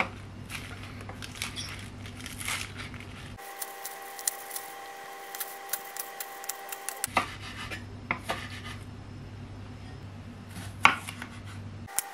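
Chef's knife cutting spinach leaves and then slicing a cucumber on a wooden cutting board: irregular sharp taps of the blade against the board. A steady low hum runs under most of it.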